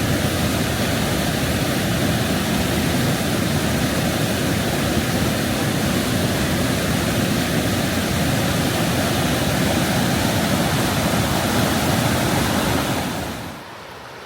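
Oxtongue River water rushing steadily over rapids. It turns much quieter suddenly near the end.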